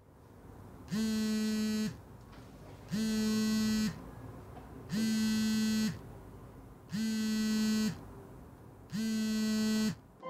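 Smartphone vibrating against a tabletop for an incoming call: five steady, one-second buzzes, evenly spaced about two seconds apart.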